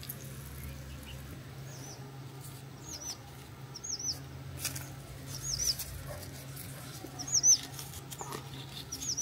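A small bird repeating a short, high, hooked chirp about once a second. A few sharp clicks sound over it, the loudest about seven and a half seconds in, with a steady low hum underneath.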